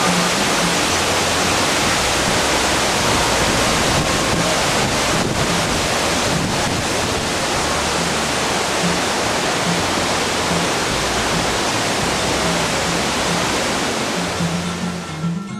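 Steady rush of fast water tumbling over the rocks of a stream, fading out near the end.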